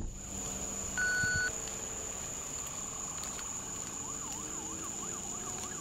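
A police siren yelping faintly, its pitch sweeping quickly up and down about twice a second, starting about four seconds in. A short electronic beep sounds about a second in.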